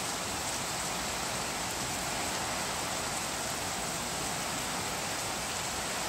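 Typhoon rain falling steadily: an even, unbroken hiss of rain on surfaces.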